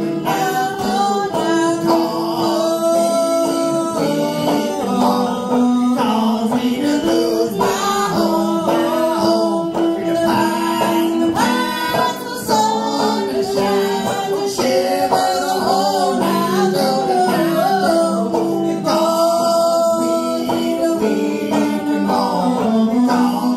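Fiddle and banjo playing a folk song together live, with singing over them.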